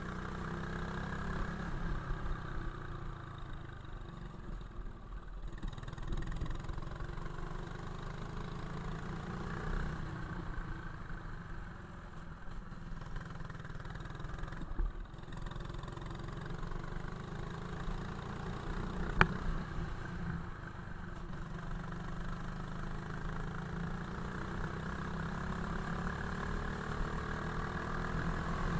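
Go-kart engine running close to the onboard camera, its pitch rising and falling repeatedly as the kart accelerates and slows for corners. A single sharp click about two-thirds of the way through.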